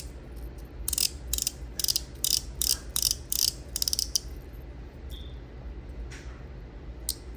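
Twisting mechanism of a metal fidget toy clicking as its end is turned by hand: a run of sharp ratchet-like clicks, about three or four a second, for a few seconds, then only a few isolated clicks near the end.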